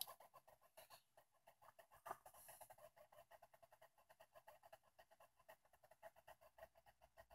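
Near silence: faint room tone with a rapid, faint ticking.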